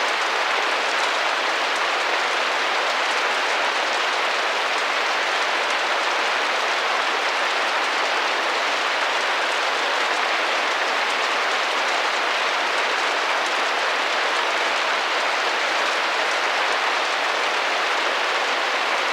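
Rain tapping steadily against a window pane, an even hiss of many small drops with no single hit standing out.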